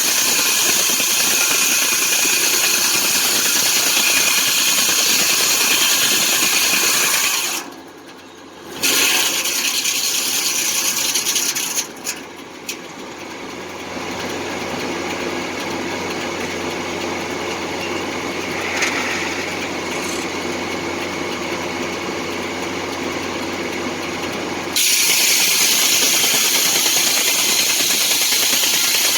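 Foley Belsaw circular sawmill and its engine running steadily. The sound drops away sharply about eight seconds in and runs quieter, with a few sharp clicks about twelve seconds in, then comes back loud near the end.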